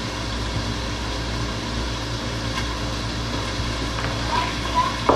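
Steady low machine hum, like a fan or appliance running in the room, with a few light knocks of a cleaver on a plastic cutting board as baked beef is sliced; the sharpest knock comes near the end.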